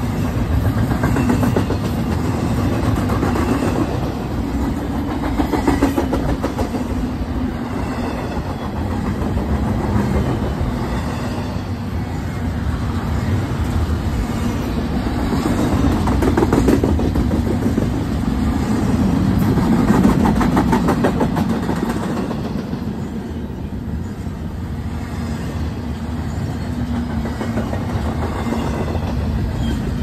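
Double-stack intermodal freight train's container well cars rolling past: a steady rumble of steel wheels on rail with rapid clicking, swelling and easing as the cars go by.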